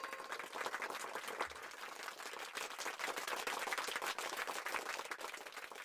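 Applause sound effect: many hands clapping in a dense patter that fades out near the end.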